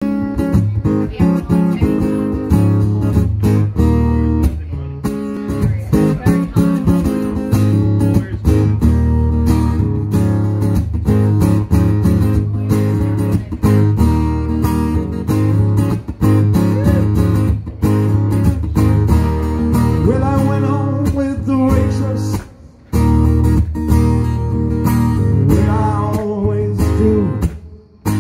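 Amplified acoustic guitar strummed and picked in a live song, with a steady deep bass underneath. The music dips briefly about three-quarters of the way through and again just before the end.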